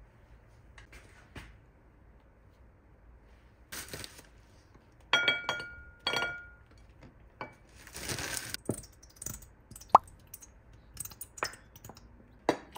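Plating sounds: frozen blueberries and tableware clicking and clinking on a ceramic plate, a few of the clinks ringing briefly about five to six seconds in. Near the end, syrup drips onto the pancakes in a few small plops.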